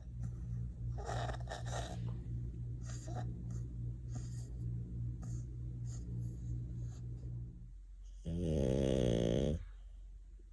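French bulldog snoring: a low, fluttering rumble for most of the stretch, then one louder, pitched snore about eight seconds in.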